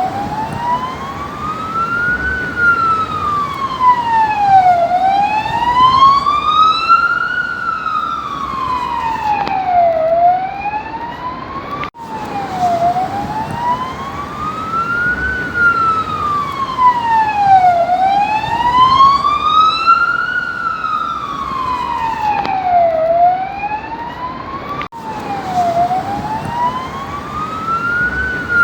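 Police car siren in wail mode, its pitch rising and falling slowly, about one full up-and-down every five seconds, over a steady rushing noise. It cuts out for an instant twice.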